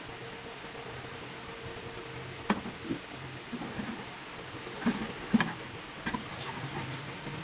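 A handful of sharp knocks and taps from kitchen work with cookware and utensils during cooking, spaced irregularly over a steady background hiss.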